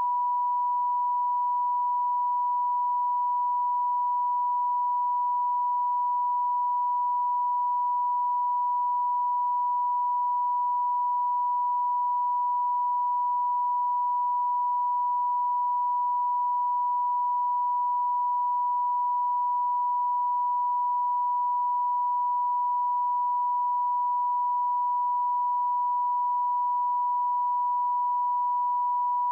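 Steady, unbroken 1 kHz television line-up test tone sounding with colour bars, the signal that the channel is off air for a technical break.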